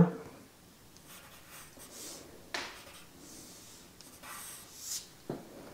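Pencil scratching on paper in several short strokes, drawing texture lines.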